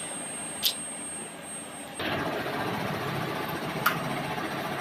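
Quiet indoor hum with a faint high steady whine and a single click. About two seconds in it changes abruptly to louder, steady street traffic noise.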